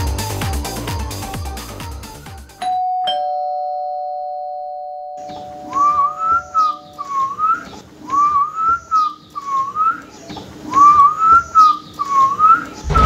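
Beat-driven background music fades out. About two and a half seconds in, a two-tone doorbell chime sounds, a higher note and then a lower one, ringing on for a few seconds. From about six seconds a man whistles a short tune in repeated phrases.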